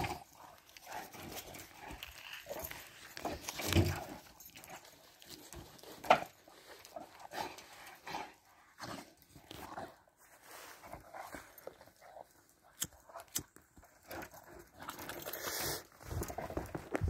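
Two dogs, a cane corso and a German shepherd, play-wrestling in snow: scattered short dog noises and scuffling at an irregular pace, loudest about four and six seconds in.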